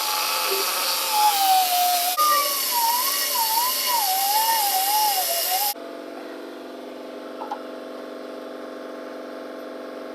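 Handheld power grinder working on sheet-metal truck bodywork, its whine sagging and wavering as it bears on the metal. About halfway through it cuts abruptly to a quieter, steady machine hum.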